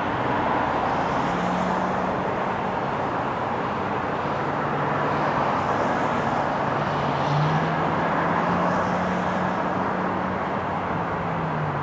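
Airbus A320 jet engines during touchdown and landing rollout on a wet runway: a steady jet roar with a low engine hum that steps up in pitch about seven and a half seconds in.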